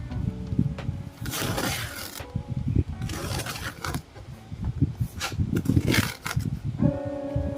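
Packaging being handled and unwrapped: irregular rustling and scraping with soft knocks, loudest in three spells around a second and a half, three seconds and five to six seconds in.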